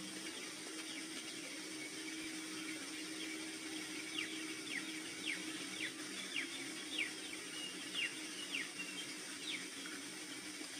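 A bird chirping repeatedly in short, quick downward notes, about two a second, starting about four seconds in and stopping near the end, over a steady hiss and a low hum that fades early on.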